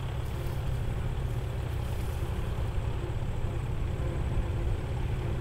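Two vintage David Brown Cropmaster tractors' engines running steadily as they are driven slowly across grass.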